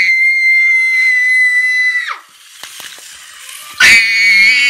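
A child screaming at a Yellies voice-activated toy spider to set it scuttling. There are two long, high-pitched screams: the first lasts about two seconds and drops in pitch as it ends, and the second starts near the end.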